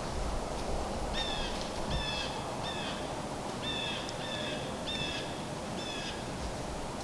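A bird giving a run of about eight short, harsh calls, each slightly falling in pitch, over the faint hush of the woods.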